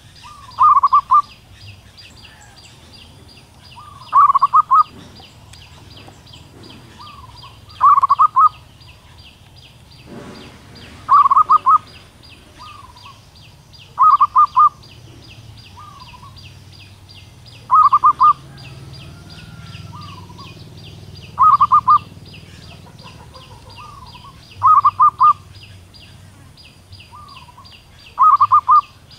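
Female zebra dove calling to attract a male: nine short, rapid cooing trills, evenly spaced about three and a half seconds apart, with a softer single note between most of them. A steady, fast, high-pitched pulsing runs behind the calls.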